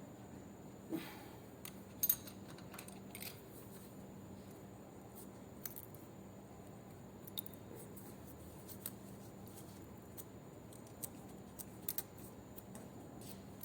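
Scattered light metallic clicks and taps of hand tools on engine parts, irregular and a few seconds apart, over a faint steady hum. The sharpest pair comes about two seconds in.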